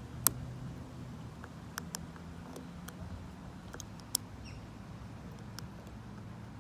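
Scattered small metallic clicks and ticks of a hook pick and tension tool working the pin stack of a vintage Lockwood 570 oval mortise lock cylinder, the sharpest just after the start and another about four seconds in, over a low steady hum.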